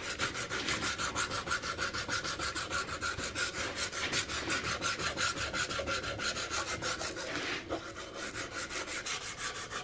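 Sandpaper wrapped on a flat stick rubbed back and forth by hand over a bare wooden gunstock, in quick even strokes about five a second, smoothing out file marks before staining. A brief pause comes a little before the eighth second, then the strokes go on a little softer.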